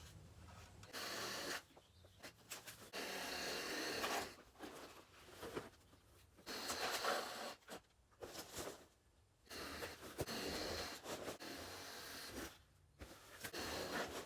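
Small cordless Bosch saw cutting palm fronds in a series of rasping bursts, each lasting one to three seconds, with short pauses between cuts.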